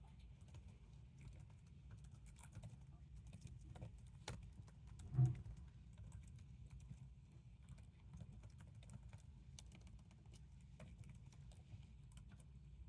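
Soft, irregular key clicks of typing on a computer keyboard over a steady low background hum, with one brief louder low sound about five seconds in.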